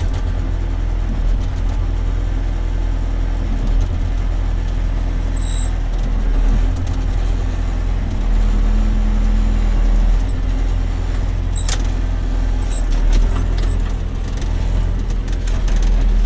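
Engine of a farm loader machine running steadily under work, a deep continuous rumble with occasional rattles and clicks.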